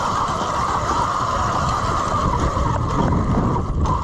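Steady rushing noise with a choppy low rumble, typical of wind buffeting the microphone, over a constant high hum.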